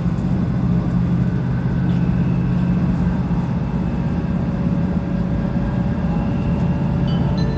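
Kyushu Shinkansen train's cabin running noise: a steady low rumble and hum from the moving train heard from inside the car.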